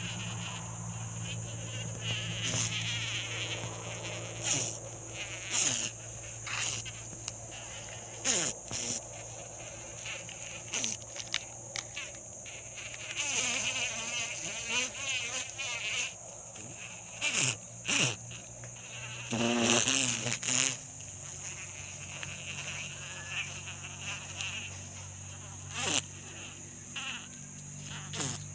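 Insects buzzing: a steady high-pitched insect drone runs throughout, and a flying insect's wings buzz up close twice, about 13 seconds in and most loudly about 20 seconds in. Scattered sharp clicks and knocks sound in between.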